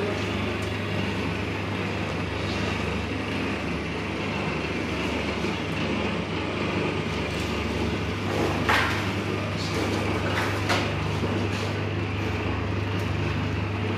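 Electric chicken griller machine running with a steady low hum, likely its rotisserie motor turning the spits, with a few short knocks in the second half.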